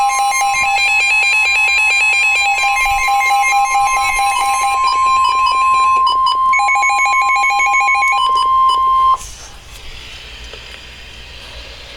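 Emergency Alert System attention signal: a loud, steady alarm of two held tones with a fast-switching beeping pattern above them. It cuts off suddenly about nine seconds in, leaving faint radio hiss.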